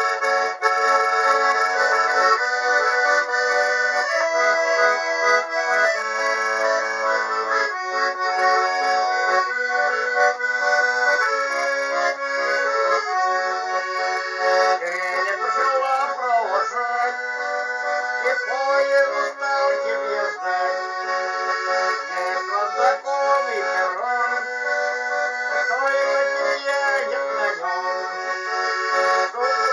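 Accordion playing a song melody over held chords, with a bass line that steps between notes.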